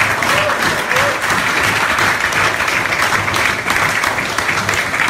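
An audience applauding: a dense, steady round of hand clapping.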